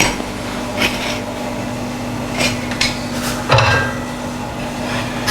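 Kitchen utensils knocking and clinking against a cooking pot: a handful of separate sharp knocks, the loudest with a dull thump about three and a half seconds in, over a steady low hum.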